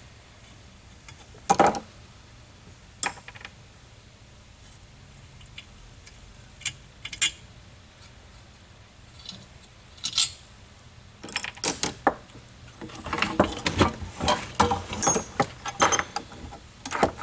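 Metal tools and parts being handled at a workbench: a few scattered clicks and knocks, then from about eleven seconds in a stretch of busy rattling and clinking metal, like rummaging through spanners.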